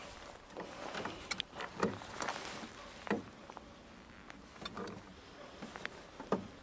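Irregular light knocks and clicks in a small fishing boat, a few of them dull thumps, over faint background hiss.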